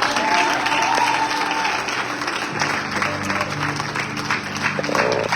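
Congregation applauding, with instrumental music playing under the clapping; low sustained notes come in about halfway through.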